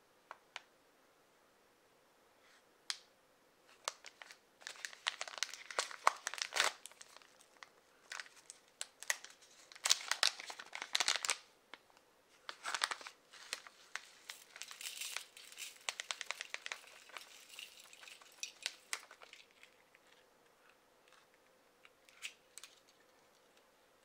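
Foil-lined plastic spice pouch crinkling as it is torn open and handled, in irregular bursts mixed with sharp clicks, tapering off to a few light clicks near the end.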